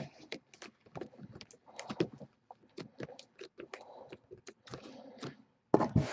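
Typing on a computer keyboard: irregular light key clicks, with a short rush of hiss near the end.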